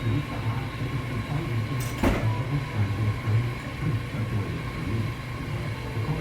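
Laundromat ambience: washing machines and dryers running with a steady, uneven low rumble and a faint hum, with a single sharp clunk about two seconds in.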